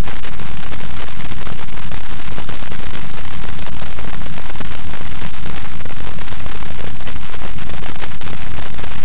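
Loud, steady crackling electronic static near full scale, with no speech or other sound in it.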